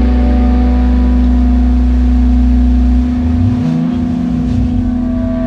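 Distorted electric guitars and bass holding a sustained, ringing drone. The deep bass note stops about three seconds in, then low notes slide up and down while a steady guitar tone rings on.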